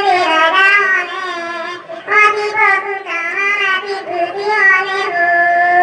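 A high-pitched voice singing a wavering melody with long held notes, over a steady held accompaniment tone.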